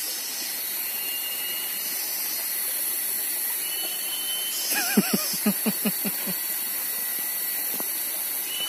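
A steady rushing hiss of outdoor ambience, with a short run of about seven quick pitched calls about five seconds in.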